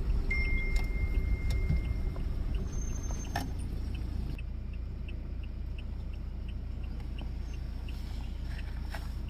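Steady low rumble of a vehicle engine running, with a faint, evenly spaced ticking of about two ticks a second and a brief thin tone early on.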